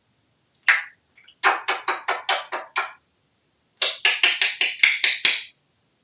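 African grey parrot vocalizing: one short note, then two quick runs of short repeated notes at about six a second, with a sharp click near the end.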